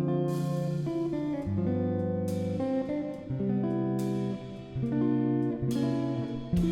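Background music: guitar strumming chords, a new chord struck every second or two.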